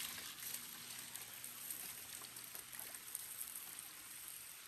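Faint light pattering and dripping of water, with a steady soft hiss.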